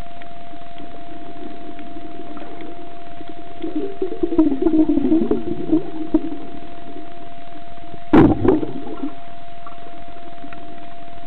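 Muffled underwater sound picked up by a camera in its waterproof housing: a steady mid-pitched tone under churning water noise that swells for a couple of seconds. One sharp knock about eight seconds in.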